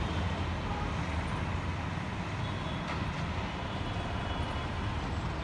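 Outdoor background noise: a steady low rumble of distant road traffic.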